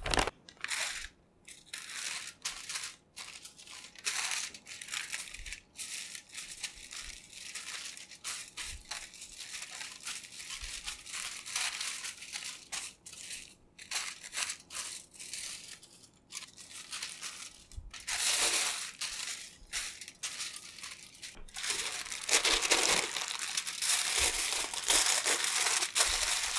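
Parchment paper and aluminium foil crinkling and rustling in irregular bursts as a log of dough is rolled up in them. The crinkling gets louder and nearly continuous in the last few seconds as the log is wrapped in the foil.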